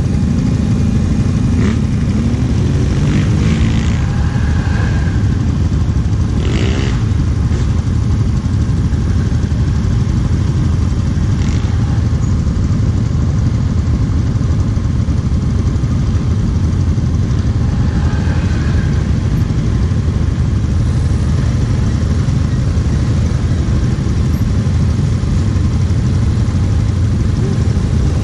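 Kawasaki KFX 700 quad's V-twin engine idling steadily close by, with other ATV engines revving briefly a few times in the first several seconds.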